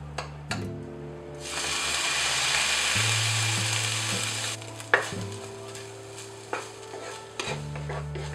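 Salted egg yolk frying in a nonstick pan: a loud sizzle starts about a second and a half in as rose liqueur (mei kuei lu chiew) hits the hot pan, and dies away about four and a half seconds in. Scrapes and a sharp tap of a wooden spatula against the pan, over background music.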